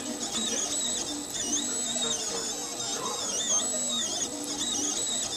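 3D printer printing, its stepper motors whining in held tones that keep jumping and dipping in pitch as the print head moves from one stroke to the next.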